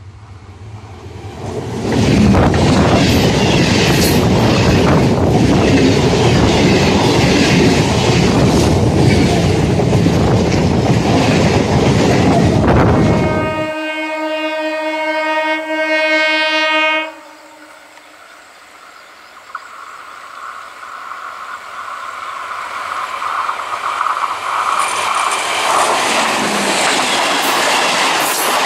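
Electric multiple unit local train passing at speed, a loud roar of wheels with clattering over the rails, cut off abruptly about halfway through. A train horn then sounds one long multi-tone blast for about three seconds. After it comes a steady whine and a rising rumble as a second EMU local approaches and passes close by near the end.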